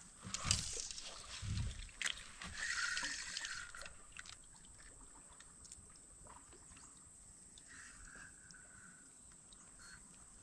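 Water sloshing and splashing around a kayak, with a few knocks and a rushing, hissy stretch in the first four seconds, then only a low steady background.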